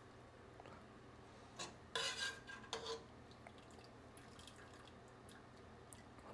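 Metal slotted spoon clattering against a dish a few times about two seconds in, one knock leaving a brief ringing note, then only quiet room tone.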